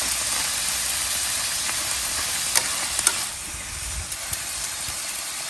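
Chicken and cabbage sizzling in a nonstick skillet while being stirred with a spoon, with two sharp clicks about halfway through; the sizzle eases a little after them.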